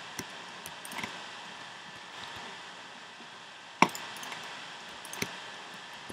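Clicks of a computer keyboard and mouse over a steady hiss: a few light clicks, then a sharp click a little before four seconds in and another about a second later.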